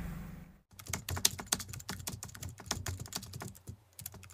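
Rapid, irregular clicking and tapping, like small hard parts knocking together. It starts after a brief cut about half a second in and pauses briefly near the end.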